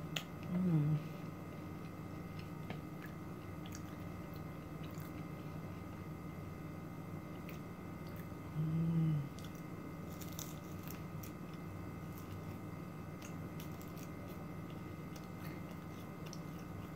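A person chewing a bite of turon, a fried plantain spring roll with a crispy, sticky shell: small crunches and wet mouth clicks, with two brief "mm" hums, one just after the start and one about halfway. A steady hum runs in the background.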